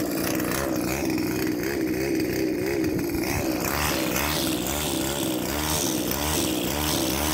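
Petrol string trimmer engine idling steadily, its pitch wavering up and down; about halfway through the sound gets brighter and more uneven.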